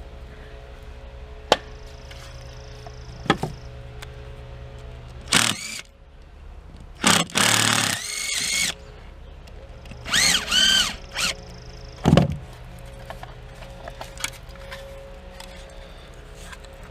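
Cordless drill driving screws in several short bursts, its motor whine rising and falling each time the trigger is squeezed, with a few sharp knocks between bursts.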